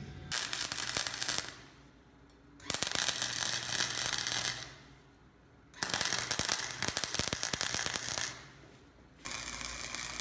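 Electric arc welder crackling and spitting as metal plates are welded, in three bursts of about one to two and a half seconds with short pauses between. Near the end a steadier, quieter hiss begins.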